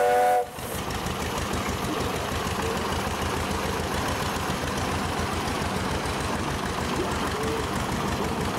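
Engine of an early steel-wheeled farm tractor (1930s or earlier) running steadily as the tractor drives slowly, with an even, rapid pulse of firing strokes. A steam whistle's chord cuts off about half a second in.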